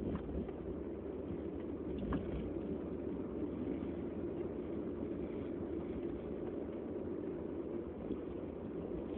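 Steady low rumbling background noise, with one faint brief sound about two seconds in.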